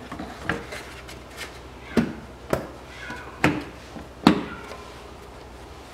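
Plastic engine cover being pressed down onto its mounts: about five sharp knocks and clicks of hard plastic, the loudest about two seconds and four seconds in.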